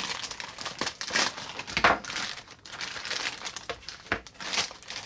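Thin clear plastic toy bag crinkling and rustling in irregular bursts as it is cut open with scissors and the toy is pulled out.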